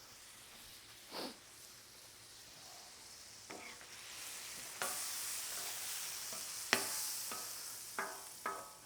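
Chopped ribeye sizzling on a hot flat-top griddle, the sizzle getting louder about five seconds in and again near seven seconds. Several short metal scrapes and clinks, typical of a spatula working the meat on the griddle.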